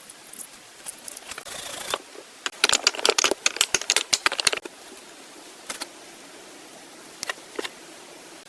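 A quick run of light, sharp clicks and taps lasting about two seconds, with a few single clicks before and after.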